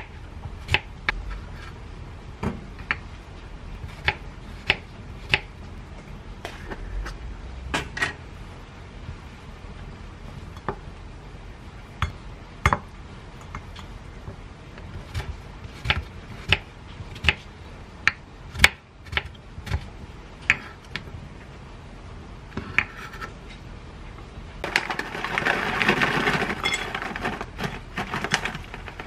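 Kitchen knife clicking on a wooden cutting board as fruit is sliced, with scattered sharp taps, and a spoon scraping in a ceramic bowl. Near the end, granola pours out of a bag and rattles into the bowl for a few seconds.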